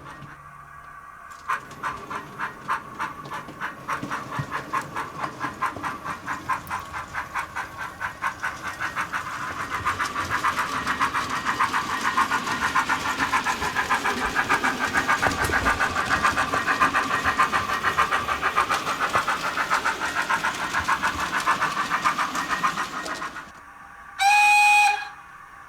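Soundtraxx Econami steam sound decoder in a Hornby 9F model locomotive, playing steam exhaust chuffs through its small speaker: a few beats a second at first, quickening into a rapid, almost continuous chuff as the locomotive speeds up. The chuffing stops suddenly near the end, and a short whistle blast follows.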